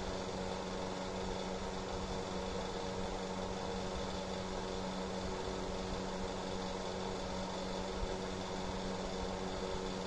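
Ningbo Singfun electric space heater running: its fan motor gives a steady hum over an even rush of blown air.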